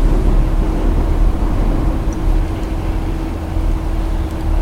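Steady low rumble with a constant faint hum: background noise, with no distinct event.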